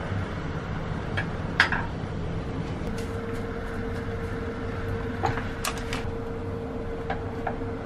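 Chopsticks clicking and tapping, first on a wooden cutting board and then against a saucepan as dry noodles are put in and stirred, over a steady low hum; a faint steady tone joins about three seconds in.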